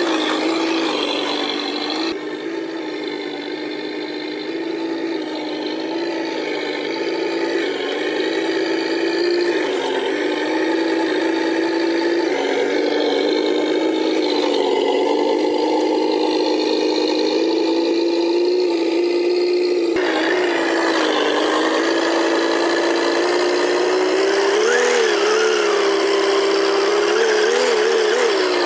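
Simulated V8 engine sound from the RC truck's sound unit, running steadily at low throttle. It changes abruptly about two seconds in and again near the middle, and gives a few short revs near the end.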